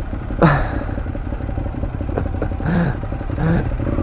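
Ducati Monster 821's L-twin engine with an SC-Project exhaust running steadily at low speed in slow traffic. A short, louder sound falling in pitch comes about half a second in.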